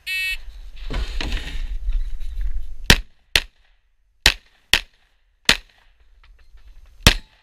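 A shot timer beeps briefly. A second or two of rustling follows, then six pistol shots: two quick pairs, a single shot, and after a pause of more than a second a last one.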